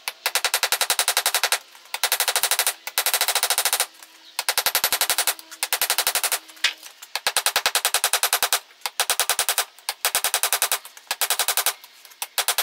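Ball-peen hammer striking a red-hot san mai damascus blade on a steel block anvil during hand forging: quick runs of rapid hammer blows, each run about a second long, broken by short pauses.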